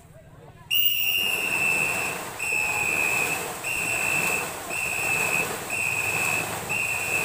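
A pace whistle blown in long, evenly repeated blasts, about one a second, starting about a second in, over the splashing of many paddles driving through the water. The whistle sets the paddling stroke rhythm for a crew in a long Khmer ngo racing boat.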